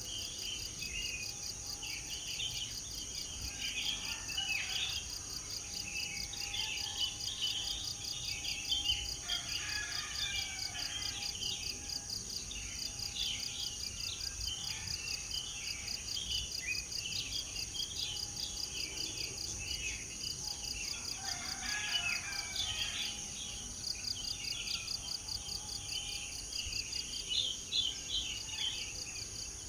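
Many birds chirping and singing in dense, overlapping calls, over a steady high-pitched pulsing trill.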